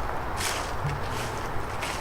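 Footsteps of a person walking along a trail at a steady pace, a short scuffing step roughly every three-quarters of a second, over a low steady rumble.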